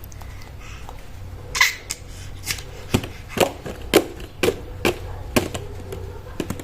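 A run of about ten sharp, irregularly spaced clicks and light knocks over a steady low hum, some of them ringing briefly.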